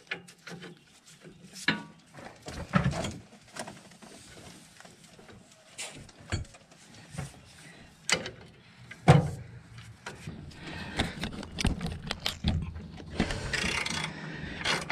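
A wrench clicking and knocking on the steel brake caliper and its bracket as a caliper mounting bolt is worked loose by hand. The knocks are irregular, with the loudest about nine seconds in and a denser stretch of scraping and clicking near the end.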